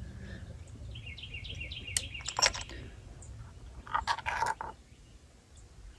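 A bird chirping in a quick series of short, high notes, with a few sharp clicks and a brief clatter of handling noise.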